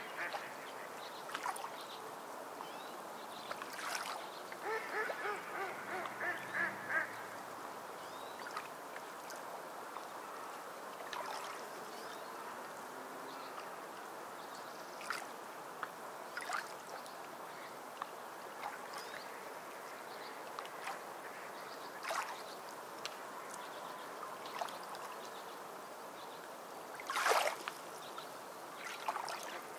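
Birds calling: a run of rapid pulsed calls about four to seven seconds in, over a steady hiss. Scattered short sharp sounds follow, the loudest near the end.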